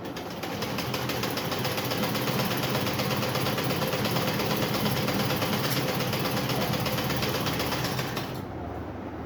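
Electric sewing machine running at a steady speed, its needle clattering in a fast even rhythm as it stitches; it speeds up just after the start and stops about eight seconds in.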